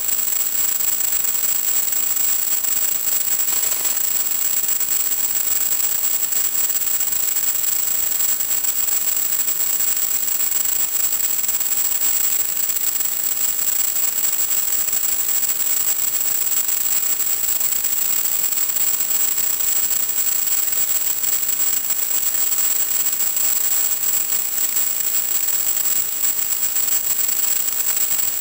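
Steady static hiss from an analog FPV video link's audio channel, with a constant high-pitched tone in it.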